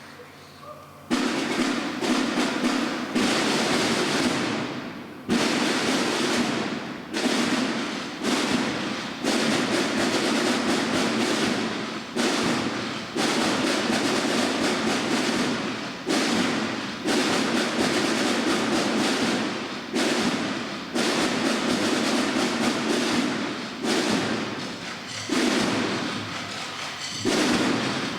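An anvil struck hard about once a second, with a few longer gaps. Each blow rings and fades before the next.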